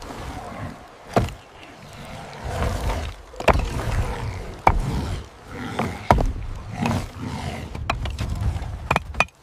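Sharp knocks of stone and wood being worked, six of them spaced one to two seconds apart, over a low rumble with animal-like vocal sounds between them.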